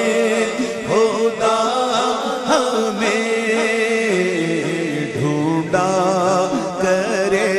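A man singing an Urdu naat into a microphone, drawing out long wavering melismatic notes with no clear words, over a steady lower drone.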